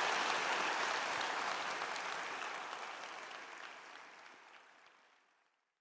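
Audience applauding, a dense patter of many hands clapping that fades out steadily over the last two or three seconds.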